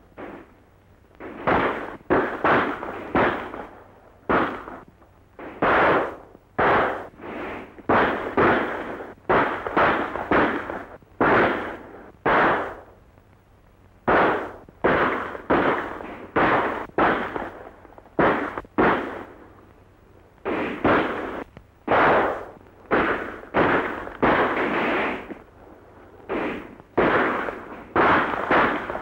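Gunfight: dozens of gunshots fired irregularly, sometimes singly and sometimes in quick runs of two or three, each followed by a short echoing tail, with brief lulls about halfway through.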